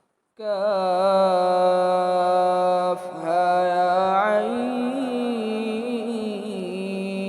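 A voice chanting long, held notes that waver slightly, with a brief break about three seconds in, in the melodic style of Quran recitation.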